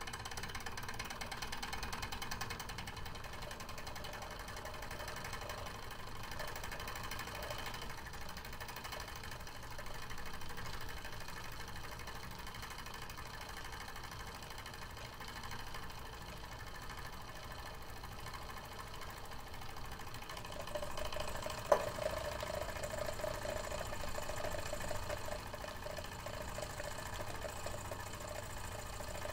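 Small model steam engine with a flywheel running steadily on steam: a fast, even mechanical chuffing. About two-thirds of the way through there is one sharp click, after which a louder pulsing sound joins the running.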